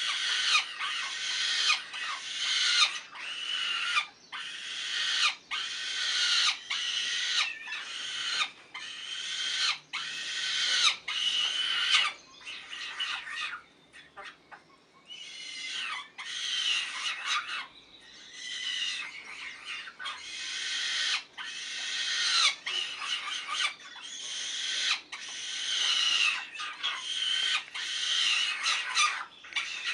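Nestling sparrows begging to be fed: harsh calls repeated about once a second, with a short pause about halfway through.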